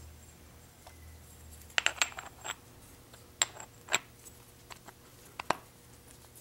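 Light metallic clicks and clinks, a dozen or so scattered sharp taps, as a metal drive gear is worked onto the rotary engine's eccentric shaft and lined up with its keyway.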